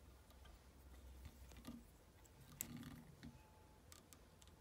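Near silence with a few faint, sharp clicks and taps from fly-tying tools handled at the vise; the sharpest click comes a little past halfway.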